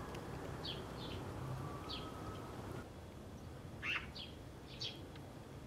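Small birds chirping: short, high, falling chirps repeated every half second to a second, one louder about four seconds in, over a faint outdoor background.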